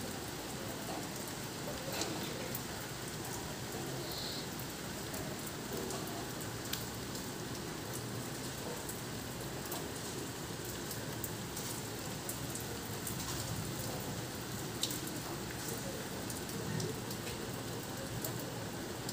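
Steady rain falling, a constant hiss with scattered sharp ticks of drops striking nearby surfaces.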